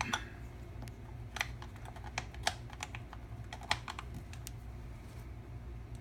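Irregular light clicks and taps of small metal parts being handled: screws and a screwdriver working on a guitar effects pedal's metal back plate.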